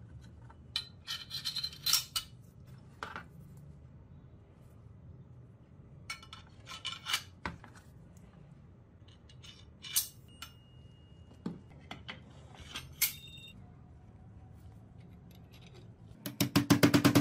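Brass fittings (blade collar and washers) clinking against the steel naginata blade and each other as they are handled and slid onto the tang: scattered light metallic clicks, one ringing briefly. Near the end a fast, even run of loud taps starts.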